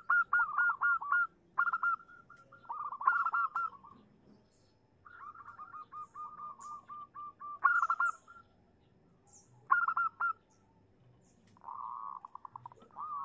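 Zebra dove (perkutut) cooing in repeated phrases of rapid staccato notes, with short pauses between them and one longer run in the middle. It is a female's call of the kind used as a lure to make males answer. Faint high chirps of small birds sound in the background.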